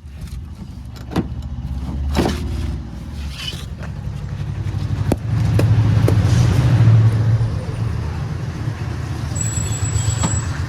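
JCB 3DX backhoe loader's diesel engine running and working harder, getting louder about halfway through. Several sharp knocks and clanks sound over it.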